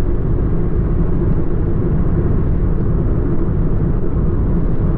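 Steady low rumble of a moving car's engine and tyres, heard from inside the cabin while cruising on the highway.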